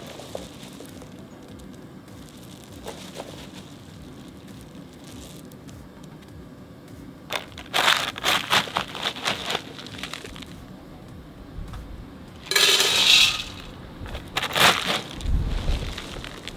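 Dry ice pellets being scooped with a plastic scoop, crunching and scraping in short clusters over the second half, with a dense rattling clatter as they are tipped into a stainless steel bowl.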